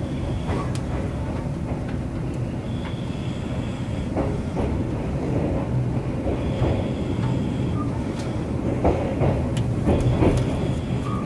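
Sleeper express coach rolling slowly through a station, heard from inside: a steady rumble of the running gear with scattered wheel clacks over rail joints. Three brief, steady high-pitched tones come and go, at about 3, 7 and 10 seconds in.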